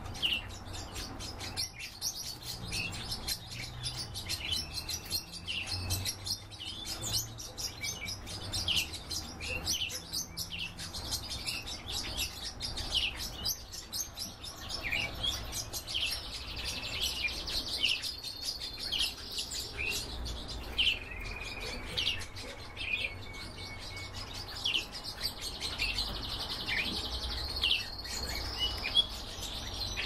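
Small pet finches, siskins among them, chirping with many short calls and sliding notes, breaking into stretches of continuous twittering song around the middle and near the end. A low steady hum sits underneath.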